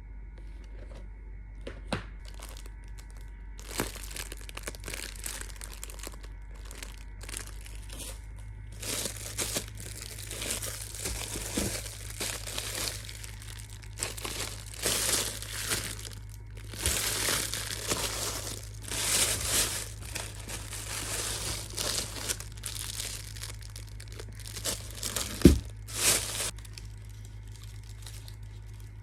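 Wrapping material crinkling as it is handled, in repeated short rustling bursts. There is a single sharp knock near the end.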